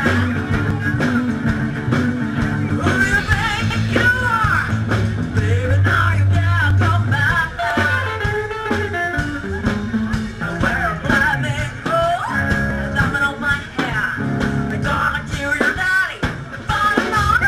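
Live rock and roll band playing: a woman singing at the microphone over a walking upright bass and a steady drum beat.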